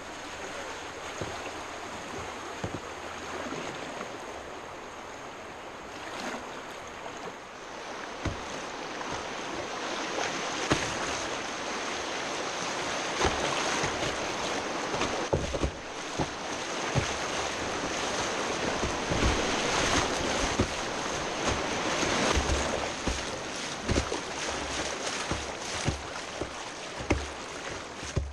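Rushing whitewater heard close up from a kayak running a rapid, with repeated splashes of water against the hull and paddle. The rush grows louder from about ten seconds in and stays strong until near the end.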